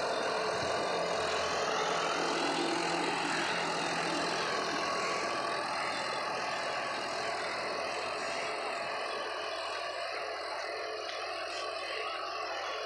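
John Deere 5405 tractor's three-cylinder diesel engine running steadily under load as it pulls a disc harrow through the soil. It grows quieter in the second half as the tractor moves away.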